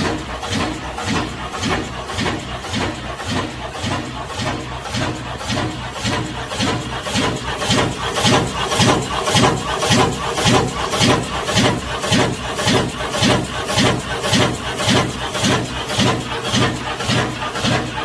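Watanabe WTD-301 Big Tornado high-speed meat slicer running, a regular beat of about two strokes a second. The beat gets a little louder partway through.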